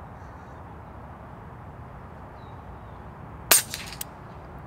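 A single sharp air rifle shot about three and a half seconds in, followed by two faint clicks within half a second, over a steady low background rush.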